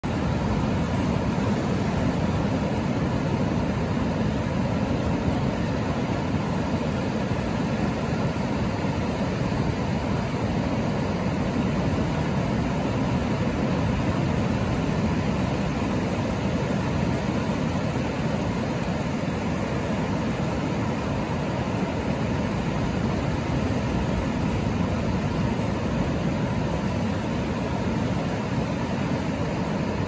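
Ocean surf: a steady, low roar of waves breaking offshore, swelling slightly now and then, with shallow water washing over the sand and around the rocks.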